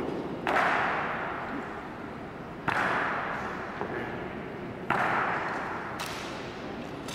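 Honor guards' boots stamping hard on the stone floor in drill: three loud, evenly spaced stamps about two seconds apart and a fainter one near the end, each ringing out in a long echo through the marble hall.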